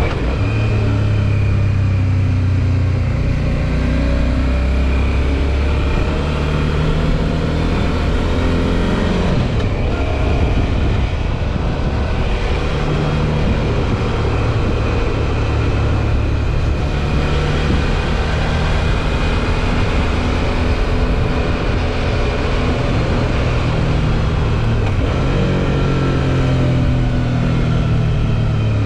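Suzuki V-Strom 650 XT's V-twin engine running under way, its note climbing and then dropping several times as the bike pulls and shifts gears, with steady rushing wind noise.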